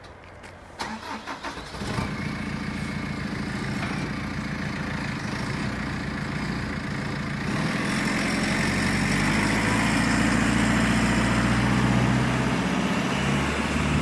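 2015 JCB 3CX Sitemaster backhoe loader's diesel engine cranked by the starter for about a second, catching and settling into a steady idle. About halfway through, the engine speed steps up and holds at a higher, louder run.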